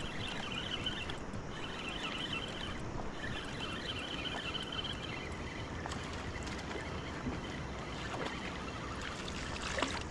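Steady rush of a fast, storm-swollen river, with an intermittent high chirring in the first half and a few sharp clicks near the end.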